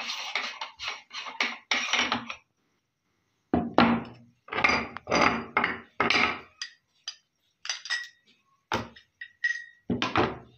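A metal meat grinder being worked and then taken apart. A quick even run of scraping strokes, about four a second, stops after about two seconds. Then come a series of metal clanks and knocks as the grinder head is opened and its cutting plate and knife are pulled out and laid on a plate.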